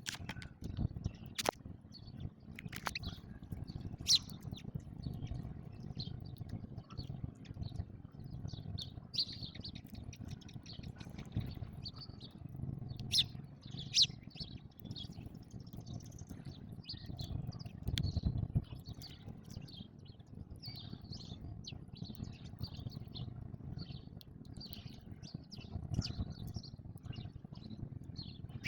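House sparrows chirping: a steady stream of short, overlapping chirps from several birds, over a low background rumble, with a few sharp clicks in the first few seconds.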